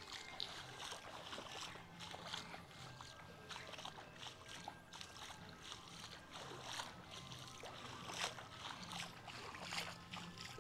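Faint, irregular splashing and lapping of floodwater.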